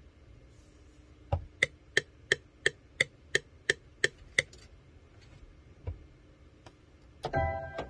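A steady run of about ten sharp, evenly spaced clicks, about three a second, from a beat-making setup of pad controller and keyboard. Near the end a pitched note with overtones begins.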